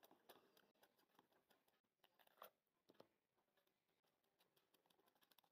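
Near silence, with a few faint ticks and light scraping of a small hand whisk against a glass bowl as semolina dosa batter is beaten.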